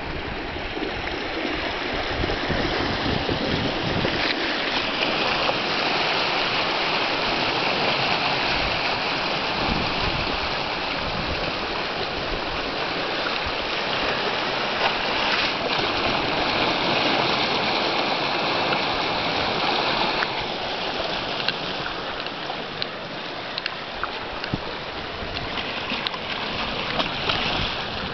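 Sea water surging into and draining out of a narrow gully in the shore rock, a steady rush of foaming water that eases a little about twenty seconds in.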